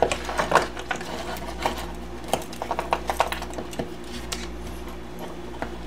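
Small salvaged electronic parts, wires and toy motors being handled and set down on a wooden workbench: scattered light clicks and taps at an irregular pace, over a steady low hum.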